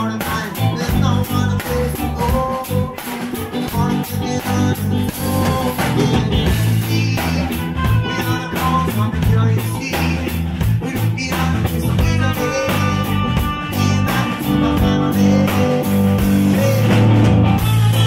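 Live rock band playing: a drum kit keeping a steady beat with regular cymbal and drum hits under an electric bass line.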